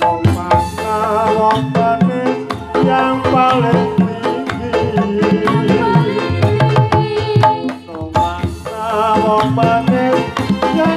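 Live Dolalak music: a busy pattern of hand-drum strokes under a wavering melody line, playing without a break.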